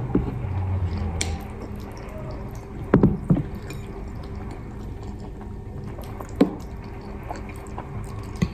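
Two people eating with spoons from a metal bowl: short spoon taps and wet eating sounds, a pair of clicks about three seconds in and another past six seconds, over a faint steady hum.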